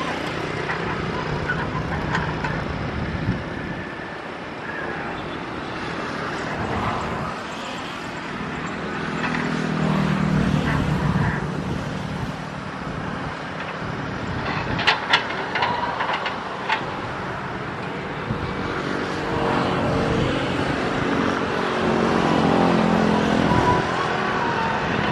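Kobelco hydraulic excavator's diesel engine running, swelling and rising in pitch twice as it works under load while digging. A few sharp knocks come together a little past halfway.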